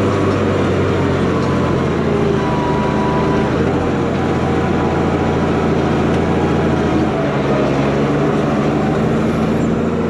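Ford TW25's turbocharged six-cylinder diesel engine running steadily under load while pulling a Flatlift cultivator, heard from inside the cab. The engine note shifts slightly a couple of times.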